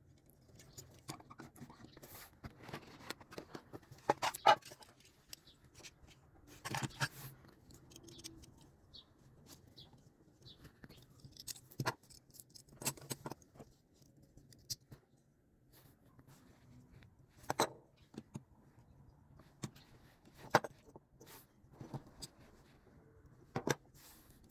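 Hands handling and opening diecast model car packaging: scattered clicks, taps and brief rustling and tearing, loudest about four and seven seconds in.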